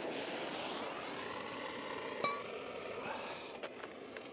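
Propane torch flame hissing steadily while heating a small air-cooled diesel engine, with one sharp metallic clink about two seconds in. The hiss fades out after about three seconds and a few light clicks follow as a hand handles the engine.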